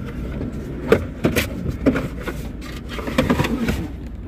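Rubber trunk mat and trunk floor cover being lifted and shifted by hand: a series of knocks and rustles, bunched about a second in and again after three seconds, over a steady low background rumble.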